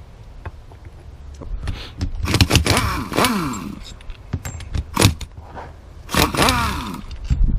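Metal brake caliper parts being handled: scraping and rattling in two spells, with a few sharp knocks between them.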